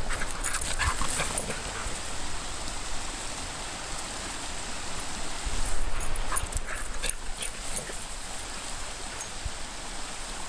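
Dog giving short, excited cries in two brief clusters, about a second in and again around six seconds in, while running about at play.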